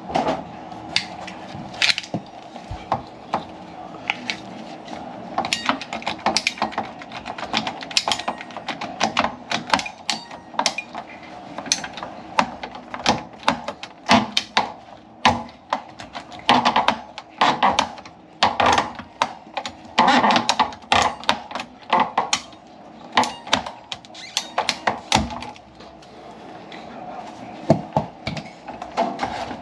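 Irregular clicks, taps and light clattering of hand work on the evaporator coil's cabinet and pipework, over a steady hum.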